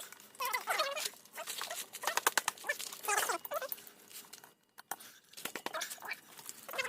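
Domestic fowl clucking in short, repeated calls, with quick clicking and tapping sounds between them.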